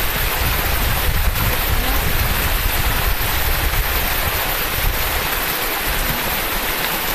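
Steady rush of running stream water, an even hiss with a low rumble beneath it.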